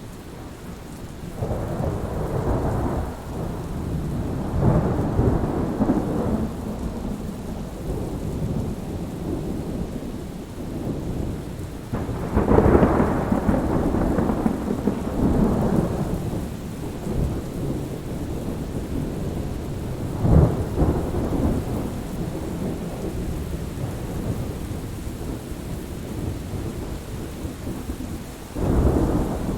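Thunderstorm: steady rain with repeated low rolls of thunder swelling and fading. The loudest roll begins sharply about twelve seconds in and rumbles for several seconds, with shorter rumbles around twenty seconds and near the end.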